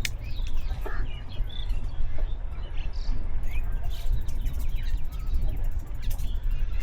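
Small birds chirping: many short, scattered calls over a steady low rumble.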